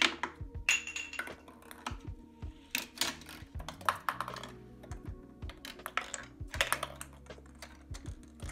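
A homemade chain-reaction machine of K'NEX pieces, wooden sticks and plastic balls running: an irregular run of small clicks, clacks and knocks as parts tip and balls roll and drop, with a few louder hits about three, four, six and seven seconds in.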